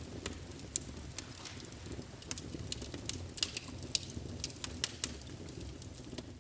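Wood log burning in a fire: frequent sharp, irregular crackles and pops over a low, steady rumble of the flames.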